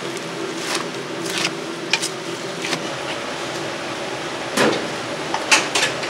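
Kitchen work: scattered, irregular knocks, clicks and short scrapes of utensils and cookware over a steady hum.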